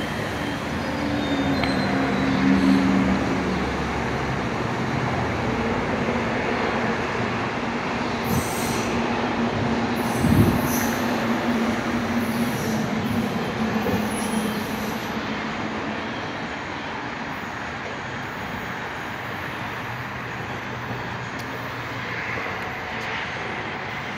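Two-car Tokyu Car-built Cleveland RTA Red Line rapid transit train pulling out and running away down the track: steady rumble with a motor hum, thin high wheel squeals between about 8 and 15 seconds in, and one clunk about ten seconds in. The rumble fades over the second half.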